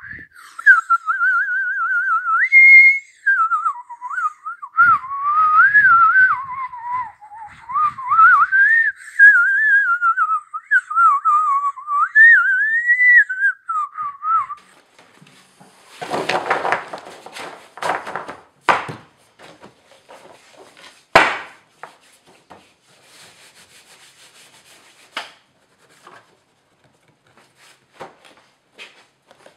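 A person whistling a meandering tune for about the first half. It is followed by the knocks and rustles of stiff cut boards being handled, stacked and jogged together, with one sharp knock a little past the middle.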